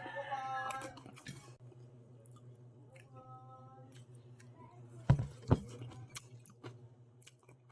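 Close-miked mouth sounds of a person chewing and eating fish soup with seaweed, with many small wet clicks. There are brief hums of voice at the start and about three seconds in, and two sharp knocks a little after five seconds, the loudest sounds, over a steady low hum.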